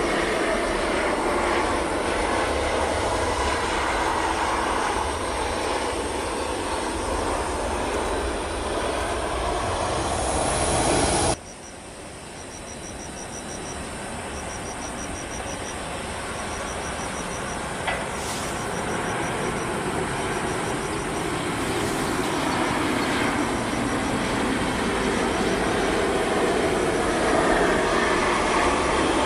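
Jet engine noise of a Boeing 737-800's CFM56-7B turbofans as the aircraft flares and touches down; it cuts off suddenly about 11 seconds in. A second Boeing 737-800 follows on approach, its engine noise growing steadily louder as it comes in to land, with faint rapid high chirps in the background.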